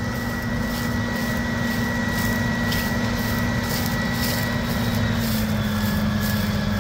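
John Deere 8640's six-cylinder diesel running steadily under load while pulling a seven-bottom moldboard plow, with a steady high whine over the engine note; the pitch dips slightly about five seconds in. The engine sounds good and is not straining.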